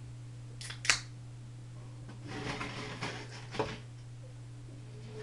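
A person drinking Sprite fast for a burping attempt: a sharp click about a second in, then about a second and a half of sputtering, fizzy noise as the soda spills.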